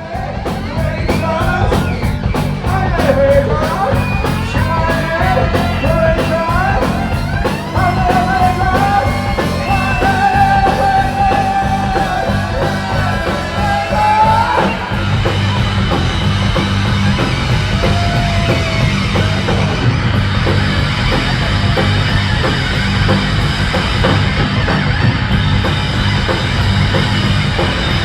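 Live rock band playing loud, with a heavy, steady bass and drum low end, recorded on a phone. Over roughly the first half a wailing line slides up and down in pitch; about halfway through it gives way to steady held high tones over the band.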